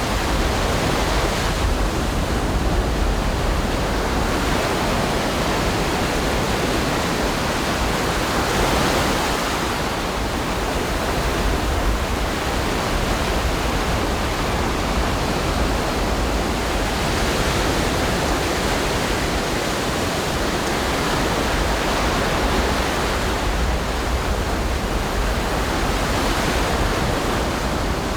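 Ocean surf breaking and washing on a beach, a continuous roar of water that swells and eases every several seconds.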